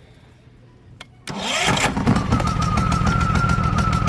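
Champion 3400-watt inverter generator's single-cylinder four-stroke engine starting on choke, catching suddenly about a second in and running steadily with a fast even beat; a steady whine joins in shortly after. It is the first successful start after the engine oil was topped up.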